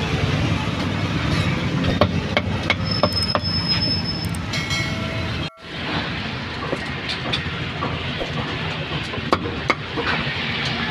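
Busy street-market background noise: a steady low rumble with scattered sharp clicks and knocks, which drops out abruptly for an instant about halfway through.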